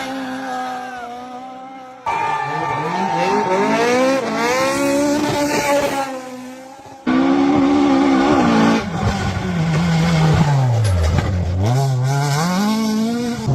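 Rally car engines revving hard and easing off as the cars drive a stage, the pitch rising and falling with gear changes, in three short pieces with abrupt cuts between them. In the last piece the engine drops low, then climbs again as it accelerates.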